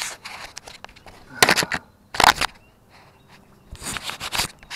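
Irregular scraping and rustling handling noises close to the microphone, in four bouts, the sharpest about a second and a half and two seconds in.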